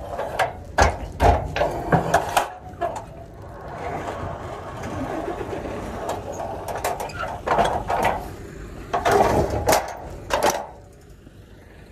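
Metal clanks, knocks and clicks from the latch at the top of a curtainsider trailer's side post, worked by hand with a flat lever bar. They come in three bunches, with a rougher scraping noise in between.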